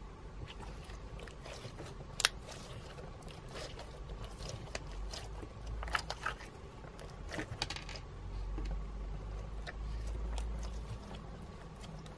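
Clear slime mixed with glitter, beads and sequins being kneaded and stretched by hand: a run of small wet clicks and crackles, with one louder click about two seconds in and busier stretches around six and seven and a half seconds.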